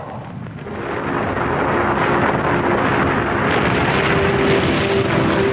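Roar of an erupting volcano, swelling over the first two seconds and then holding steady, with a faint steady low tone underneath.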